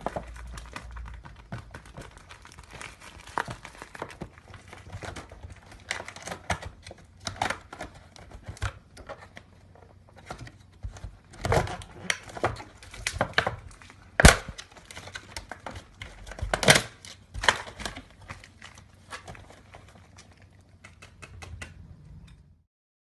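Ken doll packaging being opened by hand: irregular crinkling and rustling of plastic and cardboard, with tearing and sharp snaps. The two loudest snaps come a little past the middle, and the handling stops shortly before the end.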